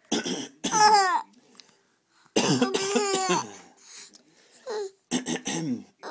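An adult coughs in short fits and a baby laughs between them, the dry coughs alternating with the baby's high, falling laughs.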